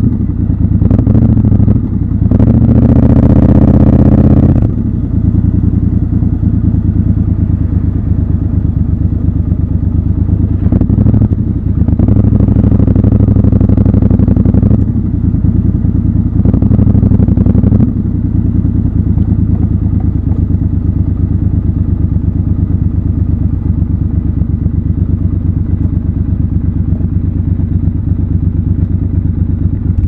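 Triumph Scrambler's parallel-twin engine running under way, with rising revs in surges about two seconds in, from about eleven to fifteen seconds and again around seventeen seconds, then running low and steady at slow riding speed for the rest.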